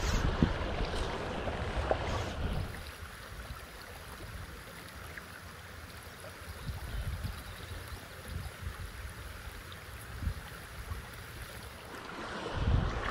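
Shallow stream water running over riffles, with low, irregular rumbles of wind buffeting the microphone. The sound drops quieter about two and a half seconds in and swells again near the end.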